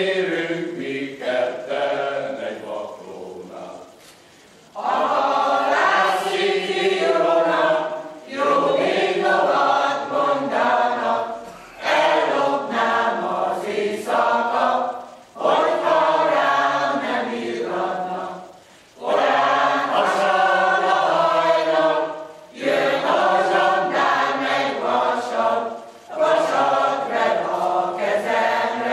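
Mixed choir of men's and women's voices singing a Hungarian folk song in phrases a few seconds long, with short breaks for breath between them. The opening phrase fades to a softer stretch, then a fuller phrase comes in about five seconds in.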